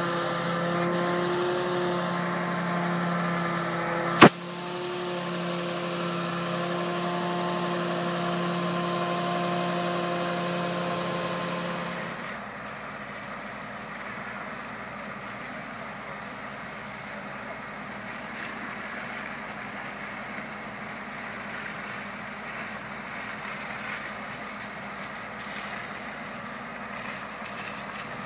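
Fire engine running steadily, a droning engine tone, with a single sharp click about four seconds in. About twelve seconds in the engine tone drops away, leaving a quieter, even noise.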